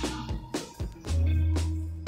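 Background music: plucked guitar over a low bass line, with a long low note starting about a second in.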